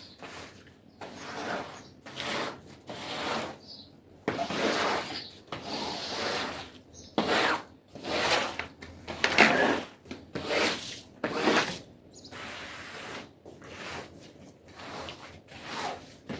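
Repeated rubbing or scraping strokes of a cleaning tool across a carpet, about one a second, some louder and longer than others.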